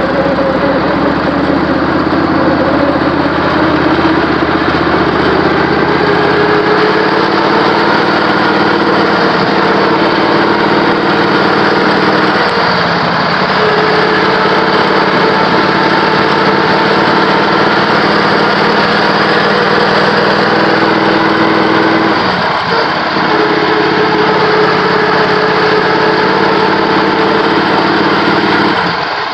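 Riding lawn mower engine running steadily at speed, heard close up from the mower being ridden. Its pitch changes twice, about halfway through and again a few seconds later, and it dips briefly near the end.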